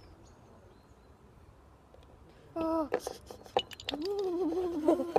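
A bucket of ice water is tipped over a person, with a splash about two and a half seconds in. The person gives a sharp cry at the cold, then a long wavering wail.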